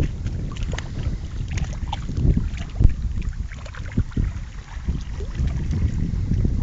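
Wind buffeting the microphone in an uneven, gusty rumble, with small waves lapping and splashing at the lake's edge.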